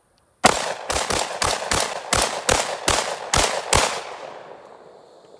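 An AR-style semi-automatic rifle firing about ten shots in quick succession, roughly three a second, at a steel plate target. A fading echo trails off for about a second and a half after the last shot.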